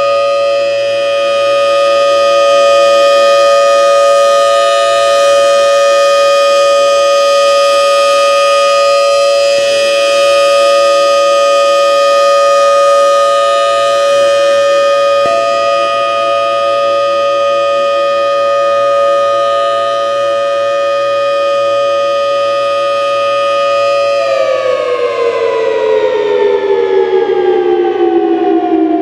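Federal Signal Thunderbolt 1003 outdoor warning siren sounding a loud, steady tone. About 24 seconds in it begins to wind down, its pitch falling steadily.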